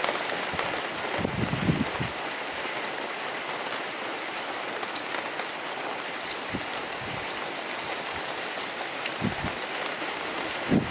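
Light rain pattering on a truck camper, a steady hiss of many small drop hits, with a couple of brief low rumbles about a second in and again near the end.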